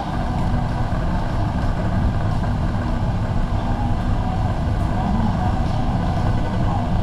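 Warehouse store ambience: a steady low rumble with a faint constant hum over it, and a light murmur of shoppers' voices.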